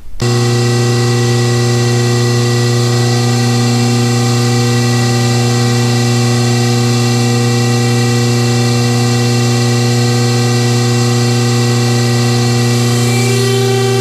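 The pull-test rig's motor running with a loud, steady hum as it loads a carabiner towards breaking.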